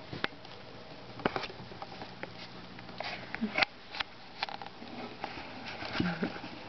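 Shichon puppies moving about and sniffing, with scattered light clicks and patter of paws and two brief falling squeaks, one about halfway through and one near the end.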